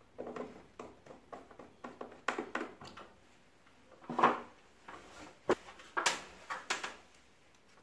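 Plastic knocks and clicks of an LG split air conditioner indoor unit's cover being pushed into place and snapping onto its catches: a string of short taps, the loudest about four seconds in and a sharp click about a second later.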